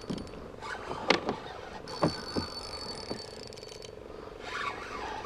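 A series of short knocks and clunks of gear against a plastic kayak hull, the loudest about a second in, as a paddle and fishing rod are handled. A steady hum runs underneath.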